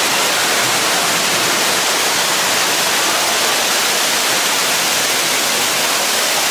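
Man-made display waterfall pouring off rockwork and splashing into a pool: a loud, steady rush of falling water.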